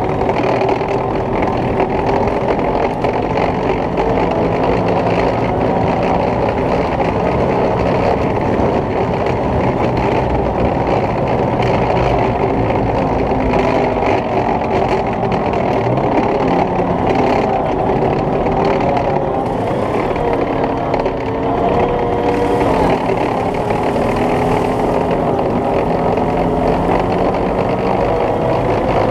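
FV432 armoured personnel carrier driving, its engine and tracks running steadily, with the engine note drifting slightly up and down.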